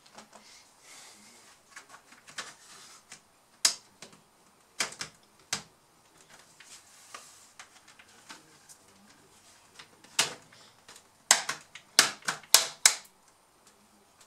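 Plastic snap clips of an ASUS K555L laptop's case clicking as the case is pried apart with a plastic pry tool. Scattered sharp clicks, with a quick run of louder snaps near the end.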